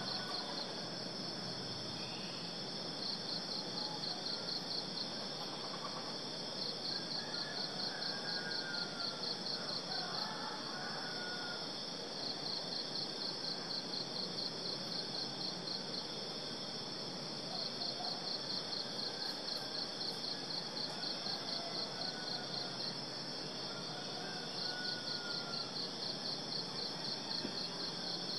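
Insect chorus: a steady high-pitched drone, with a rapid pulsed trill that comes in bouts of a few seconds and stops between them. Faint bird calls now and then.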